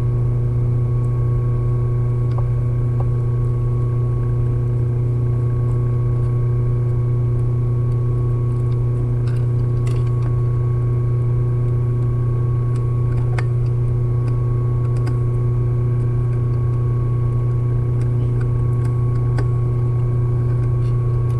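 A loud, steady low electrical hum that never changes, with a few faint clicks of a screwdriver on the sewing machine's metal plate.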